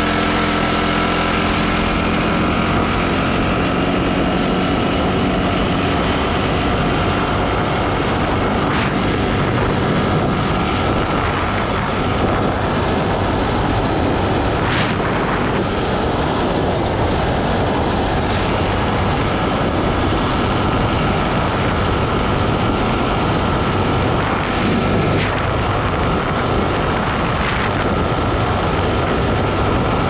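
Arctic Cat ATV riding along a gravel trail at cruising speed: a steady engine drone with a thin steady whine over it, mixed with wind and tyre noise. The engine pitch climbs briefly at the start as it accelerates, then holds steady.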